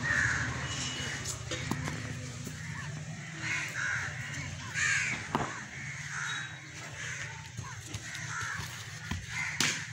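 Crows cawing repeatedly, with a few sharp knocks, the loudest near the end, over a steady low hum.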